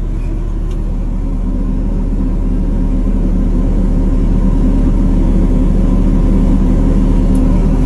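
A large engine running steadily, a low rumble with a fine even pulse that grows slightly louder.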